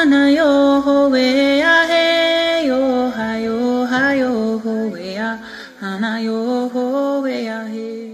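A voice singing a slow, chant-like song in long held notes that bend from pitch to pitch, fading near the end.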